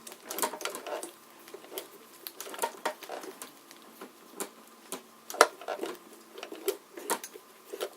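Irregular light clicks and knocks of a vintage White Peerless sewing machine being handled and cleaned, its freshly oiled mechanism being worked, with about one or two sharp clicks a second and no steady rhythm.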